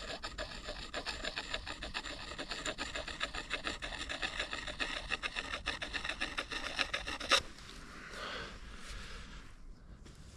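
An axe edge being sharpened by hand: quick, steady rasping strokes of the sharpener along the steel bevel. The strokes stop about seven seconds in with a sharp click, followed by faint rustling.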